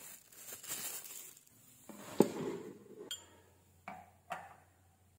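Crinkling of plastic wrapping as wrapped items are handled, then a sharp knock about two seconds in and light clinks near the end as a spoon strikes a ceramic teacup.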